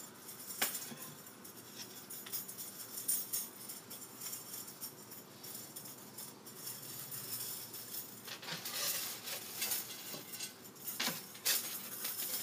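Loose steel bicycle spokes jingling and clicking against each other and against the hub motor's flanges as the hub is turned and the spokes are arranged by hand. The jingling comes in busier bursts about two-thirds of the way through, with a sharp click near the end.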